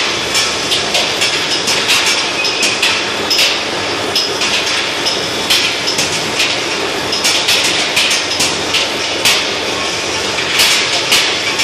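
Steel-ball skew rolling mill running, its spiral rolls forming a red-hot steel bar into balls: a steady loud machine din with irregular sharp metallic clicks and clanks, a few a second.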